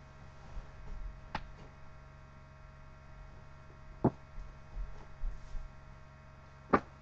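Three sharp knocks, about two and a half seconds apart, with soft low rumbles between them over a steady hum.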